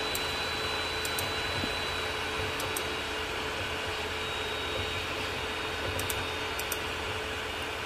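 Steady background noise with no speech: an even hiss with a faint steady hum and a thin high tone, and a few faint ticks.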